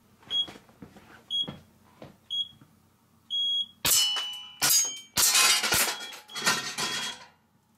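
MadBull shot timer giving three short high beeps about a second apart, then a longer start beep. Then a string of airsoft pistol shots with BBs striking steel pepper poppers, which ring and clatter down as they fall.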